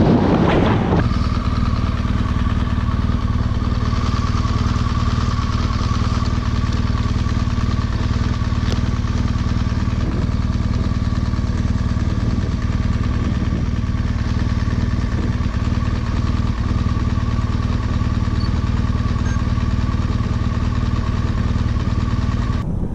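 Motorcycle engine running at a steady cruise, its note holding even throughout.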